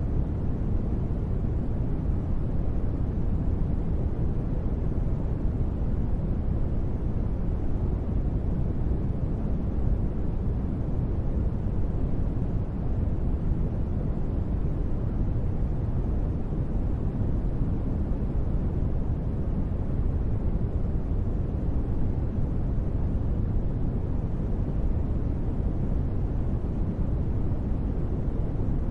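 Steady, unchanging rumbling noise with the weight in the low end, a synthesized ambient noise bed for relaxation.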